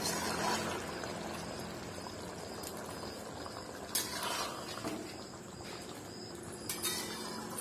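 Thick fish curry simmering in a wide metal kadai on a gas stove while a flat spatula stirs it, with brief scrapes of the spatula on the pan about four and seven seconds in.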